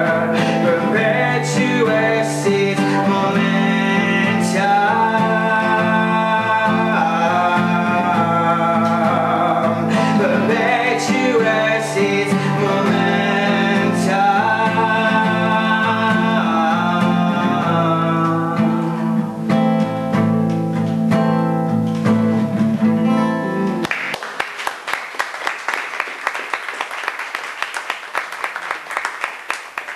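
A man singing to his own strummed acoustic guitar; the song ends about 24 seconds in and a small audience applauds.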